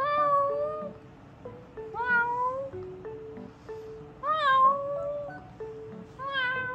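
A woman imitating a cat's meow: four drawn-out meows about two seconds apart, each rising then falling in pitch. Light background music plays under them.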